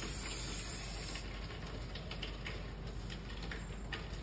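Aerosol can of rodent repellent spray hissing steadily, cutting off about a second in. Scattered light clicks and ticks follow.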